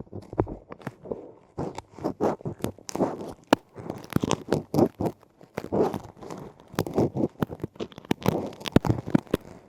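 Close, crunchy scratching and rustling of ear-cleaning tools working in a microphone's ear canal, with many irregular sharp clicks and scrapes.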